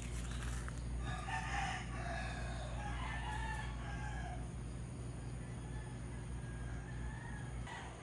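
A rooster crowing: one drawn-out call from about a second in until about four and a half seconds, over a steady low hum.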